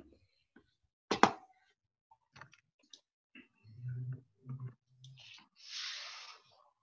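Soft handling sounds on a painting surface: a sharp click about a second in, scattered light taps, and a soft brushing hiss near the end as hands sweep over a large sheet of white paper.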